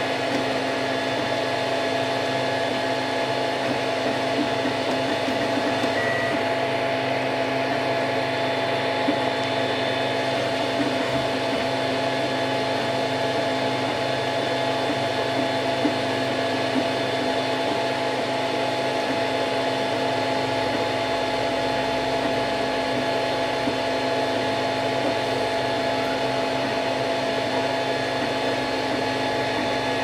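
Cocoon Create (Wanhao Duplicator i3) FDM 3D printer printing a part. Its stepper motors buzz and whir as the print head moves, over the steady hum of its cooling fans, giving several constant tones.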